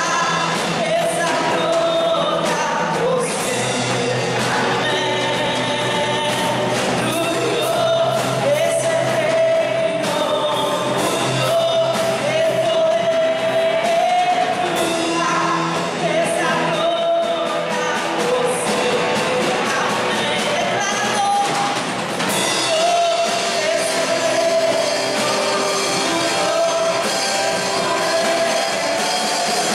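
Live worship song played by a small band: a woman sings the lead in long held notes over electric guitar, congas and drum kit.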